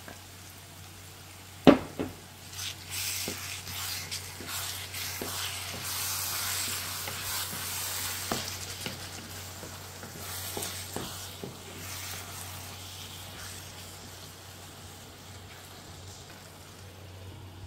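Wooden spoon stirring crushed tomato into minced meat and zucchini frying in a nonstick pan: sizzling, with scattered knocks of the spoon. A sharp knock comes about two seconds in, and the sizzle is loudest midway and fades toward the end. A steady low hum runs underneath.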